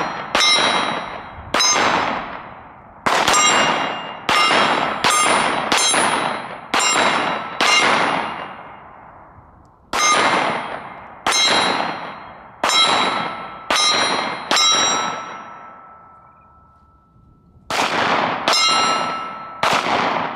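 About two dozen pistol shots at an irregular pace, each followed by the ringing ping of a struck steel target plate. There are two short pauses, and before the last quick string the plate's ring dies away slowly.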